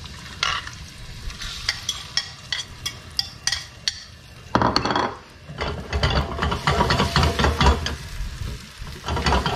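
A fork beats eggs in a ceramic bowl with quick clinks. About four and a half seconds in, the eggs are poured into a hot buttered nonstick skillet and sizzle loudly as the fork stirs them in the pan.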